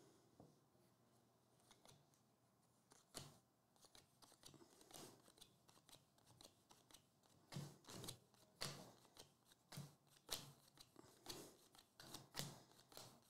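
Faint, quick slides and flicks of 2023 Bowman Draft baseball cards being thumbed off a stack one by one. The card sounds grow louder and closer together in the second half.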